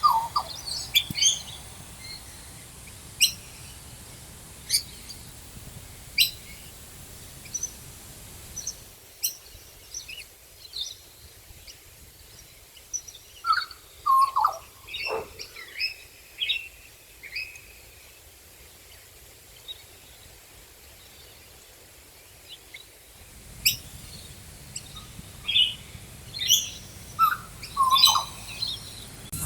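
Several birds calling: many short, high chirps and whistles, some of them falling in pitch, over a faint background hiss.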